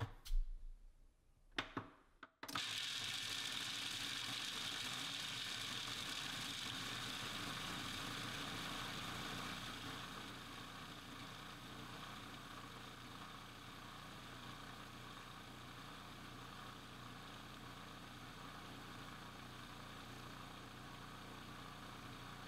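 A few short knocks, then about two seconds in a food processor motor switches on and runs steadily as its blade grinds almonds and pecans. About ten seconds in the sound settles a little quieter as the nuts break down to a coarse meal.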